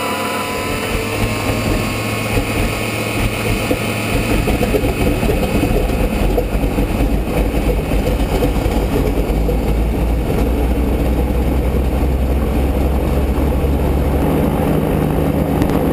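Boeing Stearman's radial engine running at idle just after start-up, growing louder and steadier about four seconds in.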